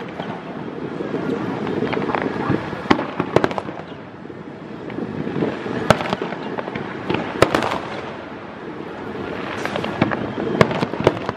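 Aerial firework shells bursting: several sharp bangs at irregular intervals over a steady background of noise from the display.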